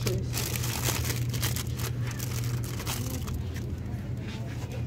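Cellophane wrapping crinkling as a hand handles packaged Easter cakes, mostly in the first couple of seconds, over a steady low hum.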